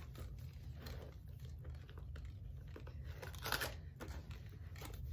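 Handling of a quilted leather crossbody bag as the zipper pocket inside it is worked, with faint rustles and scrapes and one louder zip-like scrape about three and a half seconds in, over a low steady hum.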